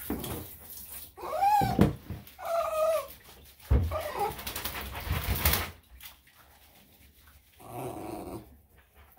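Small Bichon/Shih-Tzu dog in a bathtub whining a few times in the first four seconds, short pitched calls that rise and fall.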